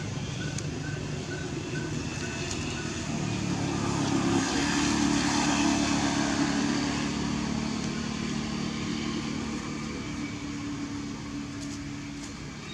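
Engine of a passing motor vehicle, a steady hum that grows louder over the first few seconds and then fades slowly.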